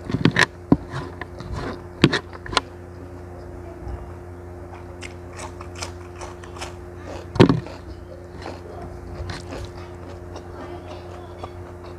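Close-miked eating: crisp crunching bites into a raw cucumber and chewing, with clusters of sharp crunches in the first few seconds and one loud crunch about seven seconds in. A steady low hum runs underneath.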